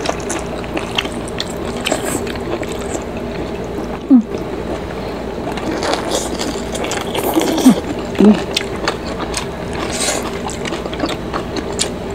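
Close-up eating sounds of boiled pork soup and soft cabbage eaten by hand: wet chewing, lip smacks and slurps as a string of small clicks. Short hums of enjoyment come about four seconds in and twice around eight seconds.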